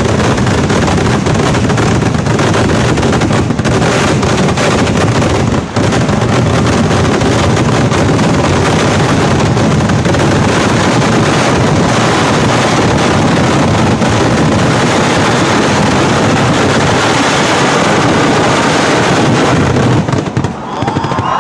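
A massed barrage of Kerala temple-festival fireworks (vedikkettu): firecracker and shell blasts come so thick and fast that they merge into one continuous, very loud din. It dies away near the end.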